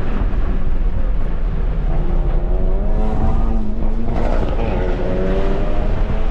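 Tesla Model 3 at track speed heard from inside the cabin: steady road and wind noise as the car brakes for a corner and accelerates out. A wavering whine in several pitches rises about two seconds in.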